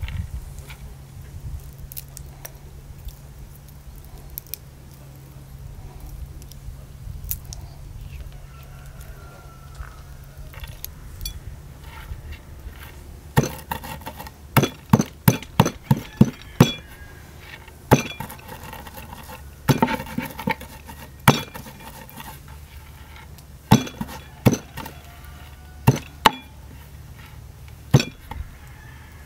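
Walnuts being crushed with a round hand-held stone in an unglazed clay bowl: sharp knocks of stone on clay and nut, irregular, one to three a second, starting about halfway through. Before that, only a few faint clicks of walnut pieces being picked into the bowl.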